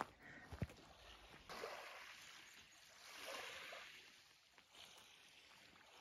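Faint wash of small waves lapping on a pebbly Lake Superior beach, swelling softly twice, with a couple of light knocks in the first second.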